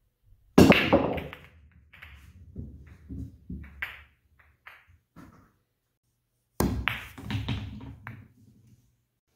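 Pool break shot: the cue ball cracks into a racked set of phenolic resin balls. Scattered clacks follow for about four seconds as the balls hit each other and the cushions and roll on the cloth-covered melamine bed. About six seconds in comes a second shot, a sharp clack followed by several more ball knocks.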